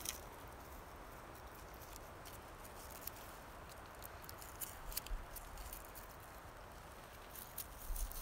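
Knife whittling a short stick of wood by hand, giving light irregular scrapes and ticks.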